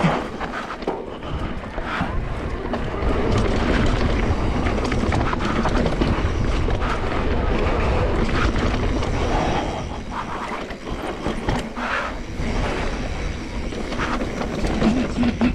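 Mountain bike riding fast down a rocky dirt trail, heard from a camera mounted on the rider or bike: wind buffeting the microphone, tyres crunching over dirt and stones, and the bike rattling over bumps. Loudest through the middle stretch, easing a little after about ten seconds.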